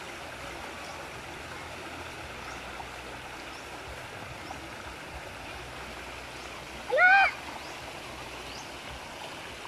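Steady rush of flowing creek water, with one short, loud, high-pitched shout from a person about two-thirds of the way through.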